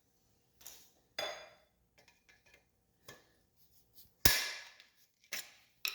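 Snap ring pliers slipping on a snap ring on the ATC250R's rear axle carrier: about six sharp metal clicks and ringing pings, the loudest about four seconds in. The slipping comes from pliers of the wrong size for the ring.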